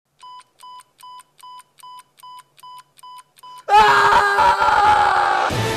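Nine short electronic beeps, about two and a half a second, like a bomb timer counting down. About three and a half seconds in they give way to a man's loud, sudden scream.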